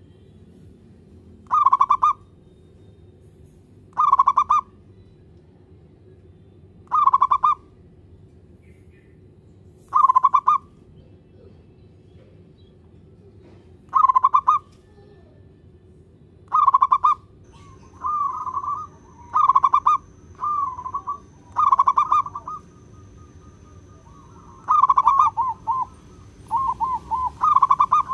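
Zebra dove (perkutut) cooing: short bursts of rapid, trilled coos repeated every few seconds. From about two-thirds in the calls come faster, with shorter trills filling the gaps between the full calls.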